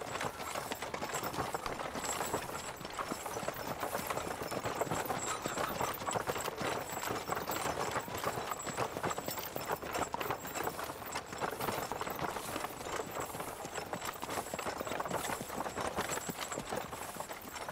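Horse hooves clip-clopping at a steady walk, a continuous run of hoof strikes at an even level.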